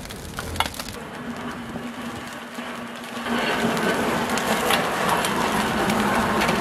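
Hotteok frying and sizzling on an oiled griddle under stainless steel dome lids, with sharp metal clinks as the lids are lifted and set down; the sizzling gets louder about three seconds in.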